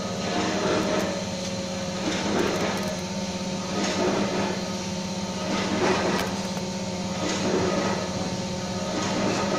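Plastic injection molding machine running: a steady hum with a swell of noise about every one and a half to two seconds.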